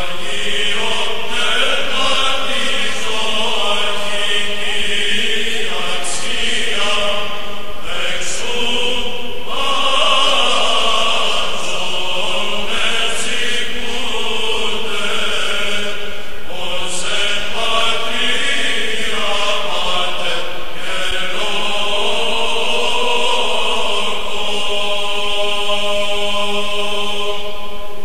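Slow chanted singing: long, drawn-out melodic notes that bend in pitch, in phrases broken by short pauses every few seconds.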